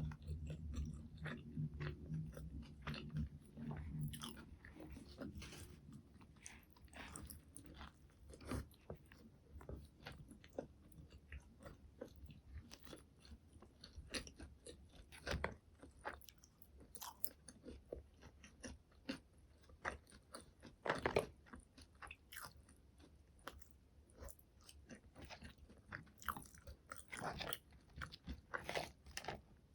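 Close-miked eating of McDonald's fast food: steady chewing with many short crunches and mouth clicks. There is a louder run of bites about 21 seconds in.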